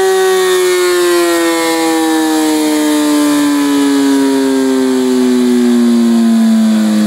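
Kawasaki sport bike on a rolling-road dyno, its engine winding down from high revs after a dyno pull: a loud whine falling slowly and evenly in pitch as the engine, rear wheel and drum coast down.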